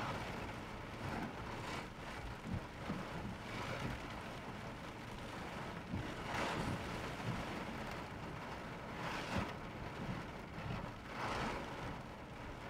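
Heavy rain and wind beating on a car in slow traffic, heard from inside the car, with a steady rushing that swells louder in brief gusts every couple of seconds.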